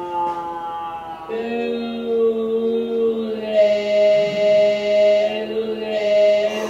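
Computer-processed recording of a spoken voice played back slowed and stretched into sustained, chant-like tones. The pitch slides slowly down for the first second or so, then a new held tone starts, and it grows brighter and louder about halfway through.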